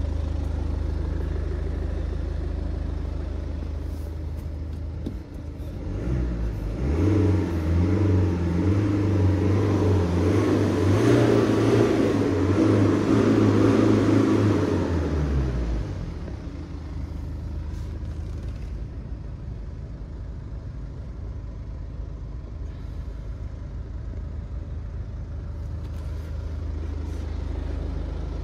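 BMW 420d's four-cylinder diesel engine running through an M Performance / 440i-style exhaust: idling, then revved up about six seconds in and held at raised revs for about nine seconds before dropping back to idle.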